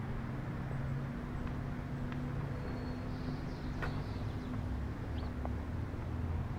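A nearby engine running steadily with a low hum, with a few faint bird chirps about three to four seconds in.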